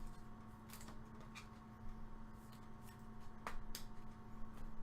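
Baseball trading cards being handled, with a few faint clicks and soft rustles of cards sliding against each other, over a steady low hum.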